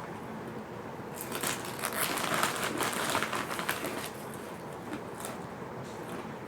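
Fish crackers crunching crisply, a dense run of crackling clicks about a second in that thins out to scattered crunches after about four seconds.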